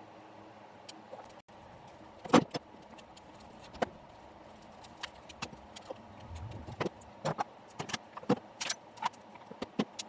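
Metal grommet curtain rings and rod clicking and clinking as curtains are hung and pulled along the rod on its wooden holders. There is one loud knock about two seconds in, then a run of lighter, irregular clicks.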